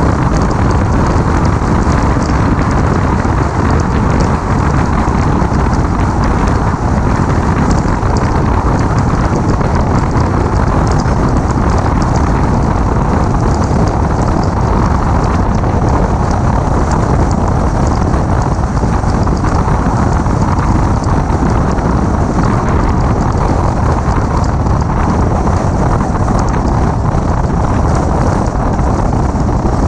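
Steady wind rushing over the microphone of a camera mounted on a 2006 Mini Cooper S driving at road speed, with tyre and road noise underneath.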